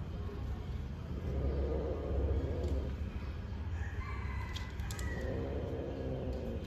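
Cats yowling while mating: long, low, drawn-out calls, two in a row, with a higher-pitched call between them.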